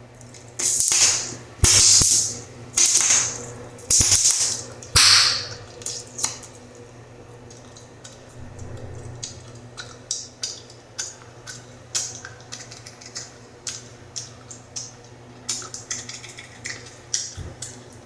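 Bubblegum chewed and snapped close to the microphone. It opens with five loud hissy air bursts about a second apart, then a quick run of sharp snaps and pops.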